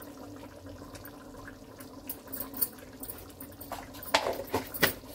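Dried fenugreek leaves (kasuri methi) crushed by hand over a pan of simmering curry, crackling lightly over a steady low hum, with a few louder scraping strokes about four seconds in.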